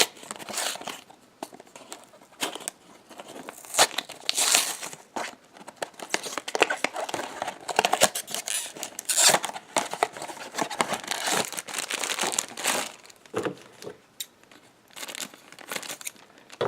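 Packaging of a Funko Mystery Minis blind box being torn open and crinkled by hand: an irregular run of crackling and sharp snaps.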